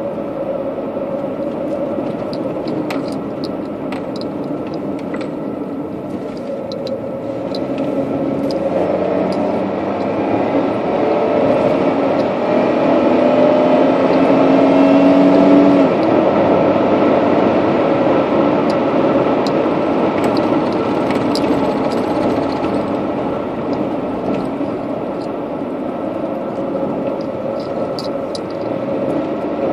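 Road and engine noise heard from inside a moving car, a steady drone that grows louder around the middle, with scattered small clicks and rattles throughout.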